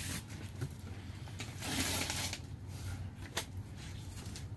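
Cardboard rustling and scraping as a large shipping box is handled and its packing tape is cut with a box cutter, with a few sharp clicks.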